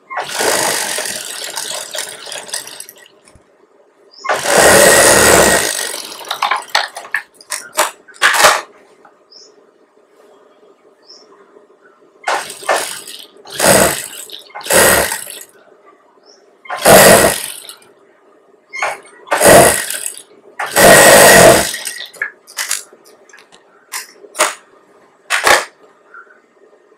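Industrial flat-bed sewing machine stitching fabric in repeated short runs of one to two seconds, stopping and starting as the seam is guided, with a steady faint hum between runs.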